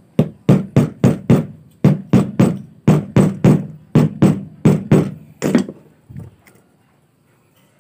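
Hammer striking the metal end fitting of a stainless steel flexible bidet hose, a quick series of blows about three a second, each with a short ring. It stops after about five and a half seconds, with two lighter taps after.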